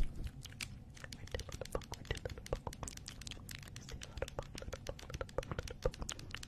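Close-miked ASMR tapping and scratching by fingers and small tools: a dense, irregular stream of quick clicks and crackles.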